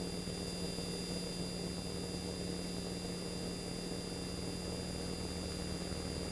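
Steady, unchanging drone with a constant electrical-sounding hum inside the cockpit of a T-28 Trojan in flight: engine and cockpit noise.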